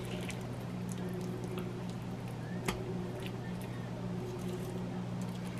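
Silicone spatula scraping thick, wet chicken pot pie filling from a metal mixing bowl into a foil pan: soft squishy scrapes and light clicks, with one sharper tap about halfway through. A steady low hum runs underneath.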